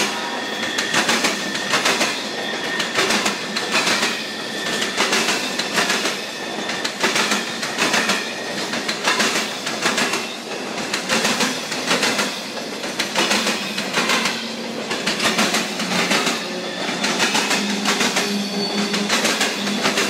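Empty CSX boxcars of a freight train rolling past at close range: wheels clack over the rail joints in repeating groups every second or two, over a steady rumble and rattle.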